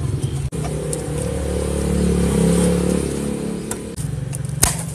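A motor vehicle engine running in the background, swelling and rising a little in pitch, then easing off. A sharp click near the end.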